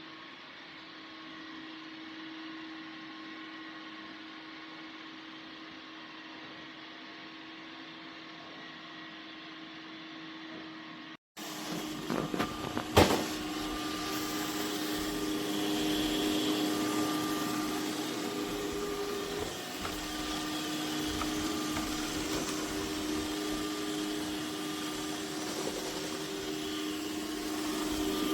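Dreame X50 Ultra robot vacuum running with a steady hum. About 11 seconds in it cuts to a louder take of the same hum, with a few sharp knocks and clicks a second or two later.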